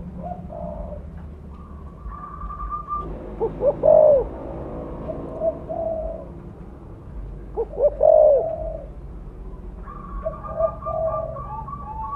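Spotted dove cooing in repeated phrases of low coos, loudest about four seconds in and again about eight seconds in, over a steady low hum.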